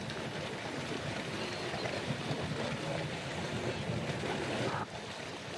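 A steady rushing noise with no clear pitch, like running water or wind ambience, dipping briefly about five seconds in.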